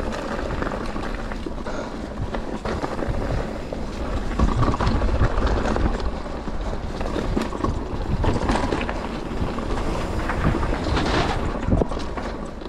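Mountain bike descending a trail at speed: wind rushing over the camera microphone over the rumble of tyres on dirt and the rattle of the bike, with frequent sharp knocks from bumps and a brief louder, hissier patch near the end.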